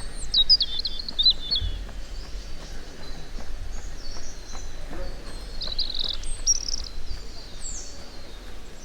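Wild birds singing: a quick run of high chirping notes near the start and another about six seconds in, with a short rising call after it, over a steady low rumble.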